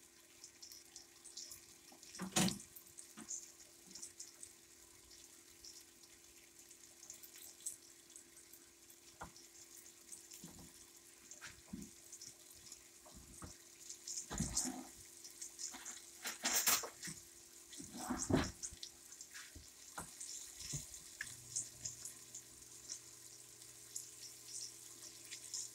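Flour-dredged chicken fillets frying in hot olive oil in a pan: a faint, steady crackling sizzle. Several sharp clatters break in, the loudest about two seconds in and around the middle.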